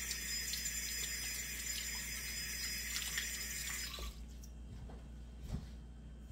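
Kitchen tap running steadily as hands are washed under it; the water is shut off about four seconds in, and a soft knock follows a moment later.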